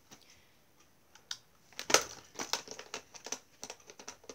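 Hard plastic clicks and rattles of a Nerf Modulus blaster being handled and its attachments worked, a single click and then a quick irregular run of clicks and knocks from about two seconds in.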